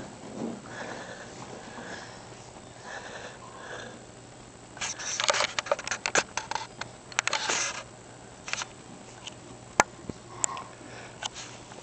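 Small dog sniffing and snorting in a run of quick noisy puffs for about three seconds, starting about five seconds in. A single sharp click comes near the end.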